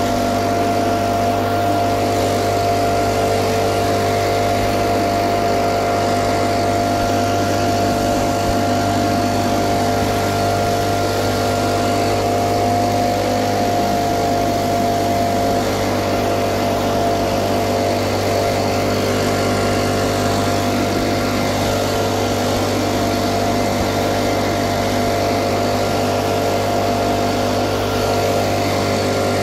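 Little Wonder Optimax walk-behind leaf blower running steadily, its small gas engine and fan giving a constant, unchanging drone as it blows pine needles.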